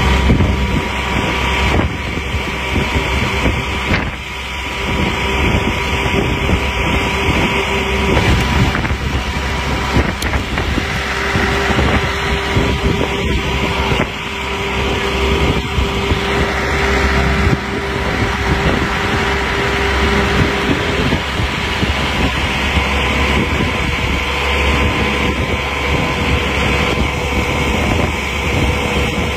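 Traffic noise from a slow convoy of cars and motorcycles on a motorway: continuous engine and tyre noise with a low rumble and a steady tone running through much of it.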